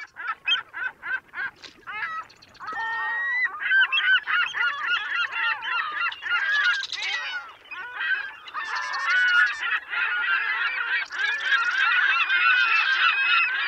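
Honking bird calls, like a flock of geese. Separate short honks at first, thickening about three seconds in into a continuous din of many calls overlapping.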